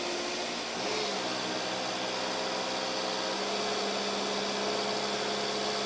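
Loader engine running steadily while moving a machine. Its note shifts and gets a little louder about a second in.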